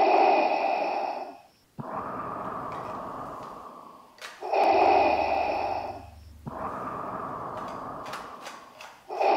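Slow, heavy breathing, loud and close: a strong inhale followed by a longer exhale that fades away, repeated twice, with a third inhale beginning at the very end.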